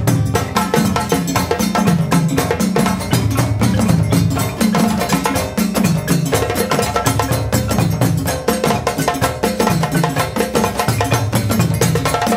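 Background music led by fast, dense percussion over a pulsing bass line.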